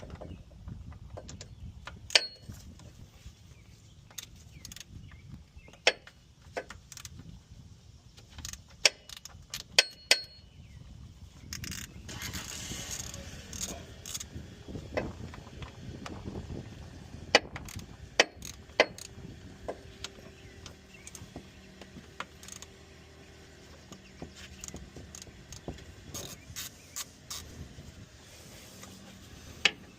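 Irregular metallic clicks and clinks of hand tools working small 8 mm bolts off an oil filter cover, some with a short ring.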